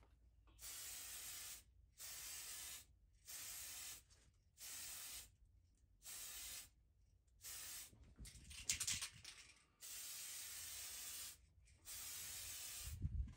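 Aerosol can of Tamiya AS-29 spray lacquer hissing in about nine short bursts with brief pauses between, as paint is laid on in passes. A low thump comes near the end.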